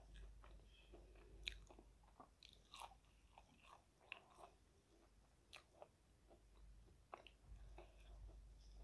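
Faint crunching bites and chewing of a crispy battered fried onion ring, with irregular crisp crunches throughout, the sharpest about a second and a half in and again about four seconds in.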